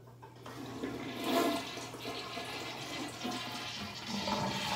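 Rushing water noise that builds up within the first second, then carries on and swells again near the end.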